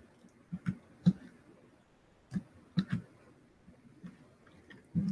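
Irregular clicks and taps of a computer mouse and keyboard: a handful of short, sharp clicks with pauses between them, coming closer together near the end.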